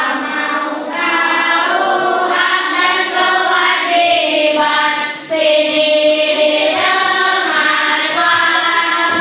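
A class of children singing a song together in unison, with long held notes in the middle.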